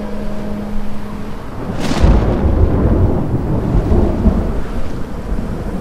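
A sharp crack of thunder about two seconds in, followed by a long, deep rolling rumble.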